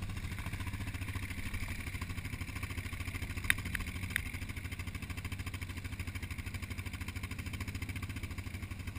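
A quad bike's single-cylinder engine running steadily at low revs, with an even pulse and no revving. Three sharp clicks come about three and a half to four seconds in.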